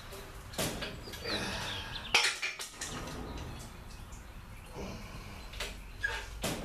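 Steel chain clinking and rattling as it is worked at the hook of an engine hoist, with a few sharp metallic clanks, the loudest about two seconds in.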